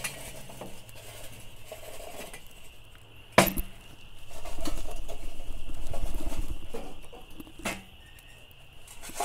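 Lit charcoal briquettes tumbling out of a metal chimney starter into a grill's charcoal basket, the coals rattling and rushing for a few seconds in the middle. Two sharp metal clanks, about three seconds in and again near the end.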